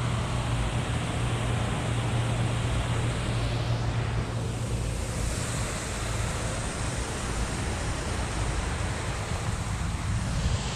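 Steady wind rushing over the microphone with a constant low hum, along with water lapping.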